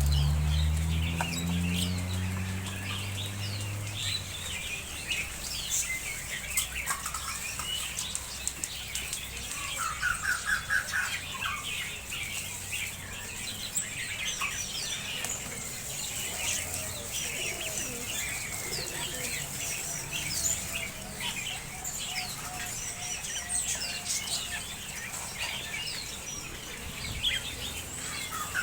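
Many small birds chirping and twittering at once, a dense overlapping chatter, with a fast trilling call about ten seconds in and again at the end. A low hum sounds in the first few seconds.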